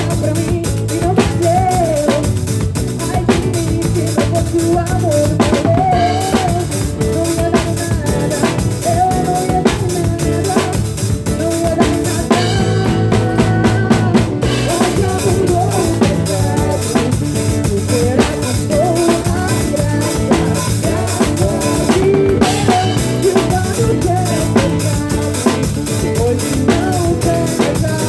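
Live pagode band playing, with a drum kit driving the rhythm: snare, bass drum and rimshots in a busy, steady groove over sustained bass and melodic instruments.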